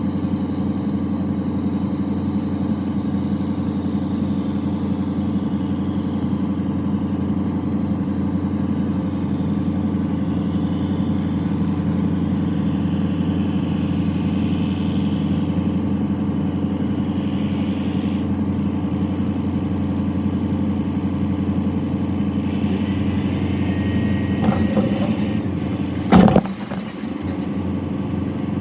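Diesel engine running steadily at an even speed, with one sharp, loud clank about two seconds before the end.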